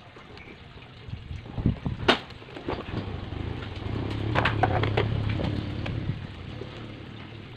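Adhesive tape and chipboard being handled on a table: a couple of sharp taps about two seconds in, then scissors snipping the tape amid rasping and rustling about halfway through.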